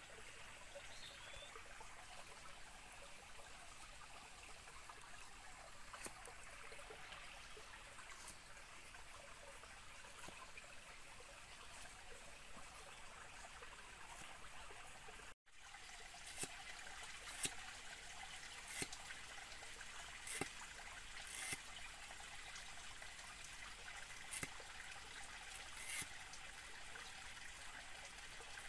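Stream water trickling steadily over rocks. From about halfway, a machete slicing a bamboo shoot against a wooden log, with sharp knife knocks every second or two over the trickle.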